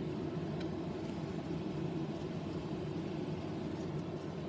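Steady low background hum of room noise, with a couple of faint ticks.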